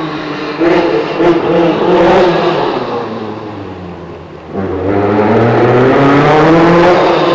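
Group B rally car engine at full throttle, rising in pitch with a few sharp cracks about a second in, then falling in pitch and fading away. About four and a half seconds in, an engine comes in suddenly and climbs steadily in pitch and loudness as it accelerates.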